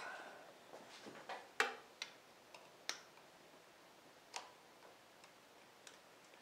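Sparse, irregular light clicks and taps of hands working a Harley-Davidson V-Rod's front ignition coil wiring connector, the loudest about a second and a half in.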